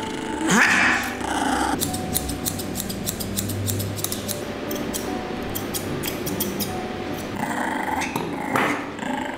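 Shih Tzu puppy growling in protest at being held for grooming, in two bouts: one about a second in, with a rising whine, and another near the end. Quick snips of grooming scissors come in between.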